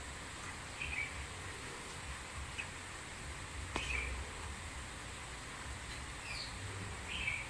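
Quiet background of steady hiss and low hum with a few short, scattered bird chirps, and one sharp click just under four seconds in.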